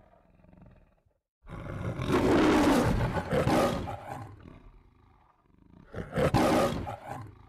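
The MGM lion's roar from the film-studio logo: a lion roaring twice, a long roar starting about a second and a half in, then a shorter one near the end.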